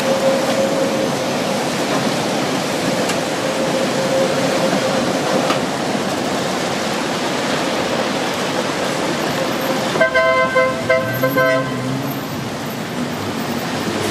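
Steady street traffic noise on a wet road as trams pass. About ten seconds in, a vehicle horn sounds in a quick run of short toots lasting about a second and a half.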